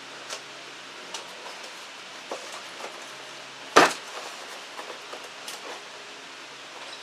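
Handling noises over a steady hiss: several light taps and clicks, and one loud, short rasping noise about four seconds in.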